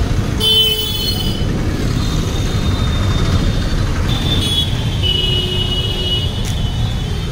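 Busy street traffic: a steady rumble of passing motorbikes and auto-rickshaws, with vehicle horns honking about half a second in and again from about four to six seconds.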